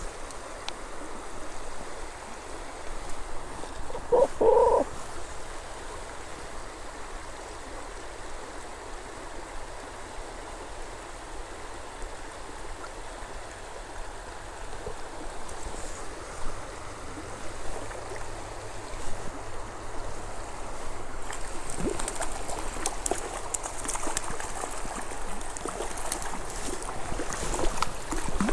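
Small spring creek running over a riffle: a steady rush and gurgle of flowing water. A short, louder sound comes about four seconds in, and there is scattered sharper splashing in the last few seconds.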